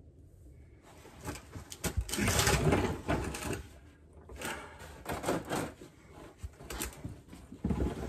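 Metal clunking and rattling in four bursts from the opened rear differential of a GMT800 Avalanche being worked by hand to check for play. There is not a lot of play.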